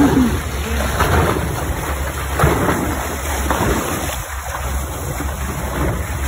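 Wind rumbling on the microphone over water rushing along the hull of a moving boat, with a few brief sloshes.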